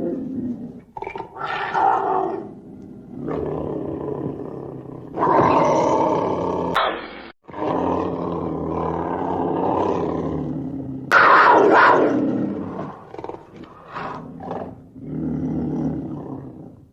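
Black panther (melanistic leopard) growling and roaring in a run of long calls separated by short pauses, with a sudden break about seven seconds in.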